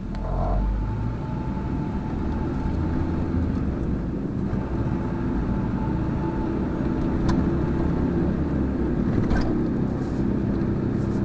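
An older small car's engine and road noise heard from inside the cabin while driving, getting louder in the first second and then holding steady.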